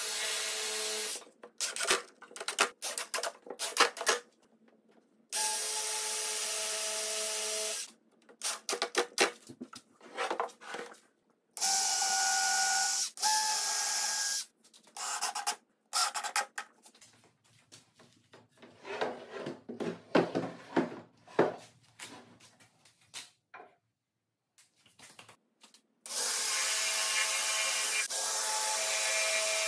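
DeWalt cordless drill driving screws into the wooden chair frame: several runs of a steady motor whine, each lasting two or three seconds. Between the runs come knocks and clicks of the wood being handled.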